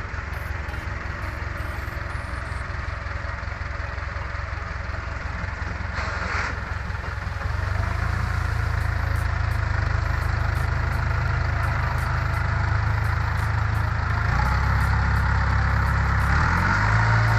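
Farm tractor diesel engine running while working in deep mud to pull out a stuck tractor. It gets louder about seven and a half seconds in and again around fourteen seconds, and the engine note shifts near the end.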